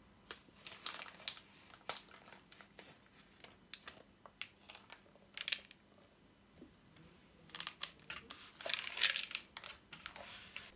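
Pine nuts being worked into bread dough in a plastic measuring jug, first with a spoon and then by hand: faint scattered clicks and scrapes against the jug, with a denser stretch of rustling and scraping shortly before the end.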